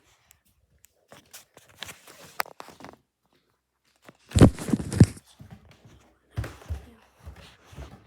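Handling sounds: scattered clicks and rustling, then a cluster of loud knocks a little past the middle, followed by a few dull thumps.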